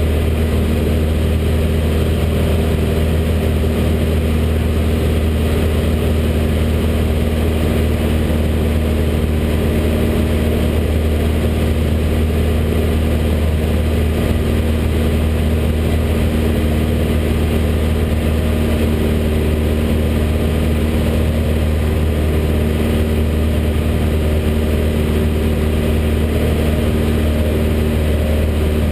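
Light aircraft's engine and propeller running steadily in flight, heard loud inside the cockpit as an even, unbroken hum with a few steady tones above it.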